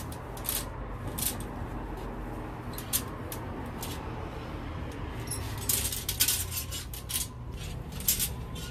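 A metal clothes drying rack clinking and rattling as laundry is hung over its rails. There are scattered light clicks, with a busier run about six seconds in and again near the end.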